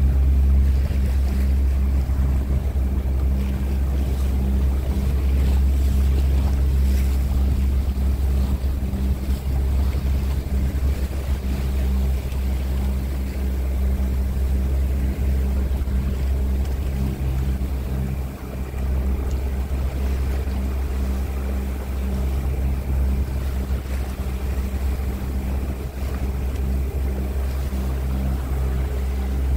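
Motorboat engine running steadily under way, a low even drone with a hiss of wind and water over it.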